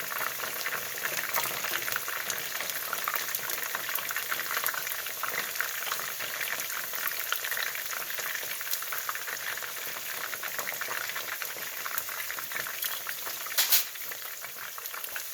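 Chicken pieces deep-frying in hot oil on their second fry to crisp them, a steady crackling sizzle. One sharp click stands out near the end.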